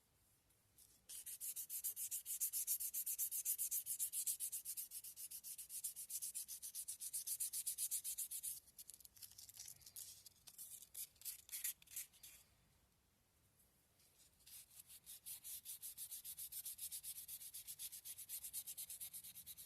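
400-grit sandpaper rubbed quickly back and forth over wood wet with linseed oil, wet-sanding the oil into the surface to fill the grain. The strokes come about four a second, turn choppy around the middle, pause briefly and then start again.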